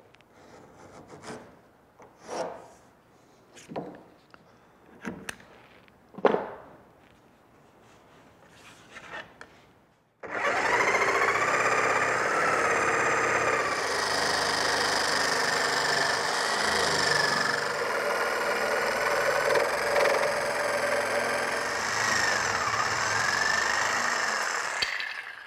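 A few short scratching strokes: a scratch awl scoring a line along a plywood template on the varnished transom. About ten seconds in, a corded jigsaw starts and runs steadily, cutting the walnut transom to shape, its whine wavering in pitch, and stops just before the end.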